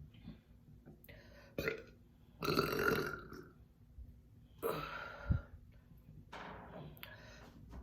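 A series of about four deep burps brought up by gulped carbonated soda. A short one comes about a second in, long loud ones at about two and a half and five seconds, and a softer one near the end.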